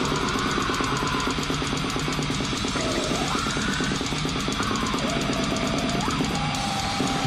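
Brutal death metal: distorted guitars over fast, dense drumming, with a few high notes sliding up and down in pitch.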